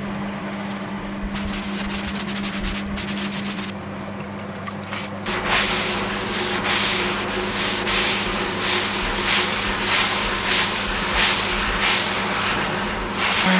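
A wet sponge rubbing back and forth over a bare pear and maple tabletop, wetting the wood to raise the grain before the final sanding. The strokes grow quicker and louder from about five seconds in, over a steady low hum.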